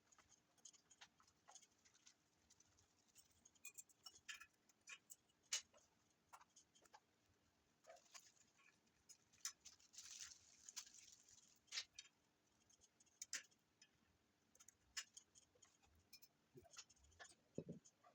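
Near silence broken by scattered faint clicks and taps at irregular intervals, from hand work on brake hub parts, over a faint steady hum.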